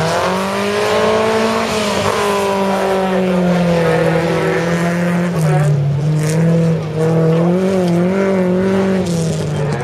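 Folkrace car's engine running hard at high revs, its pitch climbing sharply at the start and then wavering up and down as the throttle is worked through the bends.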